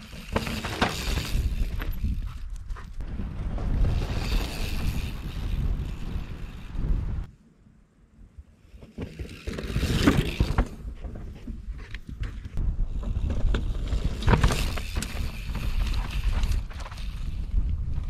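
Mountain bike riding past close to the microphone on a dirt and grass trail, in several rushes, over wind buffeting the microphone. The sound drops out briefly about seven seconds in.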